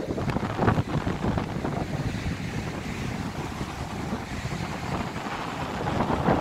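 Strong wind buffeting the microphone, a rough rushing that gusts harder in the first second, with surf breaking on the beach underneath.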